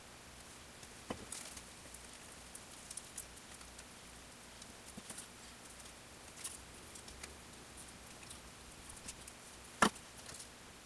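Faint scraping and light ticking of a wooden stir stick working epoxy on a small metal plate, with a short knock about a second in and a sharper, louder knock near the end as the stainless steel cup insert is set down on the wooden bench.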